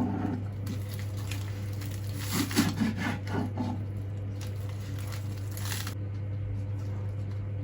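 Soft rubbing and light knocking handling sounds over a steady low hum, the knocks bunched together a couple of seconds in.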